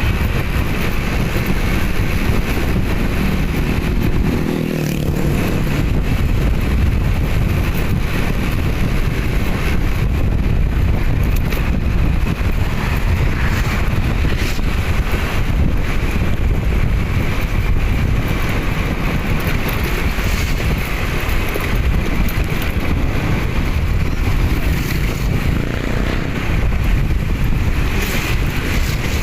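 Steady vehicle and road noise with wind buffeting the microphone, as heard while riding. About four seconds in, a brief pitched hum rises over it.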